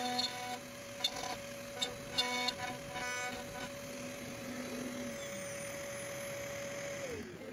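Onefinity Elite Foreman CNC router carving a wooden sign with a 60-degree V-bit: a steady spindle whine, with short pitched chirps from the stepper motors as the gantry moves. A little after seven seconds the spindle's pitch falls away as it spins down at the end of the job.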